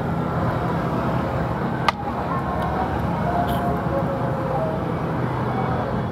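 Steady low mechanical hum of a running motor, with one sharp click about two seconds in.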